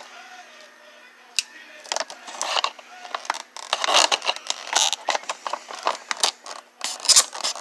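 Stiff clear plastic blister packaging being pried and scraped open with a small hand tool: irregular clicks, scrapes and crinkling. It is sparse at first and becomes a dense run from about halfway through.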